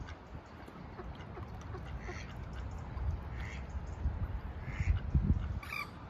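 Waterfowl on a pond calling: a few short calls spaced a second or so apart, the last and loudest near the end, over a low rumble on the microphone.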